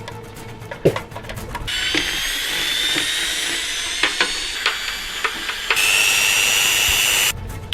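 A power drill whining at speed, its pitch creeping slowly upward as it grinds at hardened filler; it starts about two seconds in, gets louder near the end and cuts off suddenly. A few sharp knocks come before it starts.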